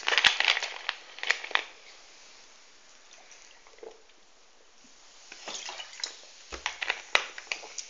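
A large plastic soda bottle handled and drunk from: crackling and clicking of the bottle at first, a quiet stretch of swallowing, then more crackling and clicks and a low thump near the end as it is lowered.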